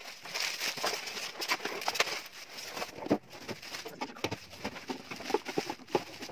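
Plastic packaging crinkling and rustling, with irregular light knocks and clicks, as a glass blender jug and a plastic-bagged motor base are handled and lifted out of a cardboard box.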